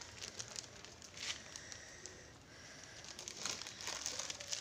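Faint crinkling of a plastic bag being handled, with scattered small crackles that grow busier near the end.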